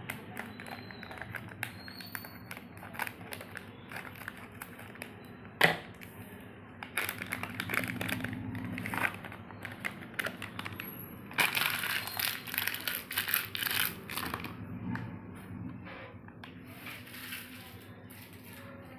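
Plastic wrapper of a Chupa Chups Crazy Feet gummy packet being snipped with scissors and handled: scattered sharp clicks with one louder snap, then the wrapper crinkling in bursts, loudest as the gummies are shaken out.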